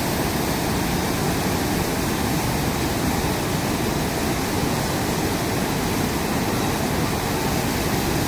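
Large river waterfall, white water pouring over the drop in a steady, even rush of noise.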